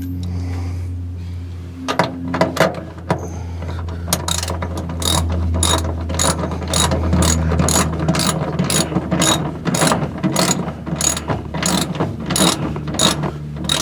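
Ratchet wrench clicking as a nut is run down on a seat-belt anchor bolt: a few uneven clicks, then steady clicking about twice a second from about four seconds in, over a steady low hum.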